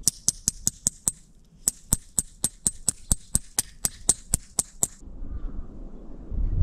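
A tent stake being hammered into frozen snow: a quick run of sharp, high strikes about four a second, with a short break just after one second, stopping about five seconds in. Low wind rumble on the microphone follows near the end.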